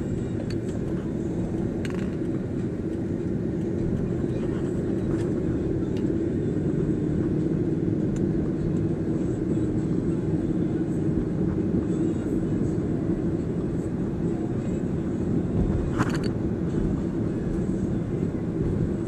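Steady road and engine noise inside a moving car's cabin, with a short click about two seconds in and another near the end.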